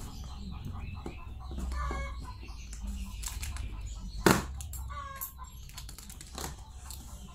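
Short bird calls, several times, over a low steady rumble, with one sharp knock about four seconds in that is the loudest sound.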